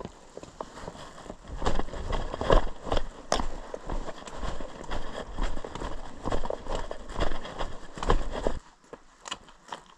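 Footsteps of a hiker walking down a stone trail, an irregular run of knocks with a low rumble behind them. Loud until about 8.5 seconds in, then fainter.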